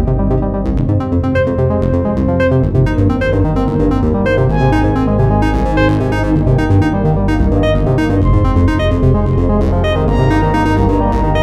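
Samsung Galaxy stock ringtone playing: an electronic synthesizer melody over a steady bass and beat.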